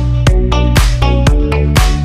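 Electronic dance music with a steady beat, about two strong beats a second, over a sustained bass line.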